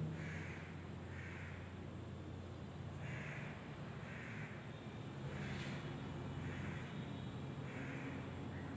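A crow cawing again and again, short harsh calls coming in loose pairs, over a steady low hum.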